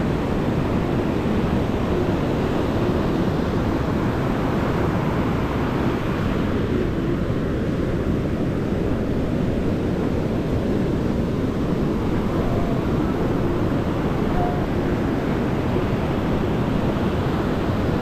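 Steady wash of surf breaking on the shore, mixed with wind rumbling on the microphone.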